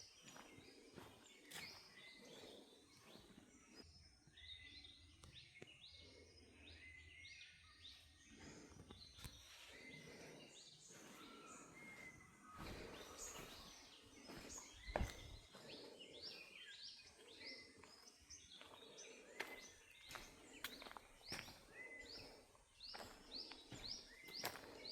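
Faint chorus of small birds chirping, many short high notes overlapping, with a quick run of repeated descending chirps near the end. A single sharp click about fifteen seconds in is the loudest sound.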